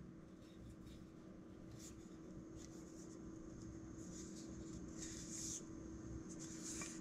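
Handling noise: short rubbing and rustling as a heavy old nata axe is lifted and turned in the hand, the strongest rub about five seconds in. A steady low hum runs underneath.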